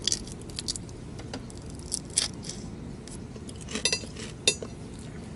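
Metal skewer of salt-grilled lake prawns set down on a ceramic plate: a few light clinks with a short ring, the sharpest about four seconds in, among small handling clicks.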